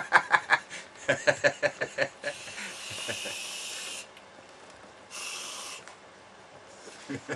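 Aerosol can of whipped cream topping spraying: a run of quick sputtering puffs, then a steady hiss for about two seconds, and a shorter hiss a little later.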